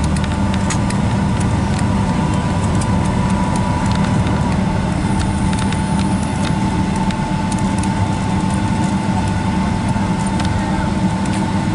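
Steady cabin noise inside a Boeing 757-200 taxiing after landing: the engines run at low taxi power under a constant low hum. A steady whine sits on top of it and drops a little in pitch about four seconds in, with scattered faint clicks and rattles.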